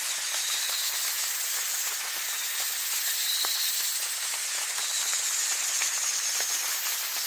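Steady, thin hiss of rain, with a few faint drop ticks in it.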